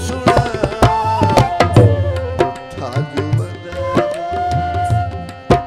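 Tabla played in quick strokes, with its low drum booming, over held harmonium notes. There is one loud stroke near the end.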